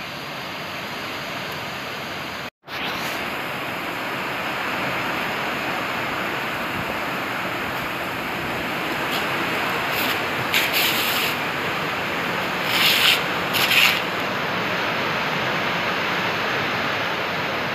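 Heavy rain falling, a steady hiss, with a brief cut-out about two and a half seconds in and a few short brushing noises close by around ten and thirteen seconds in.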